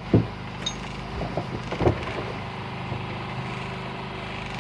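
A fishing boat's engine running with a steady low hum, and a few sharp knocks in the first two seconds.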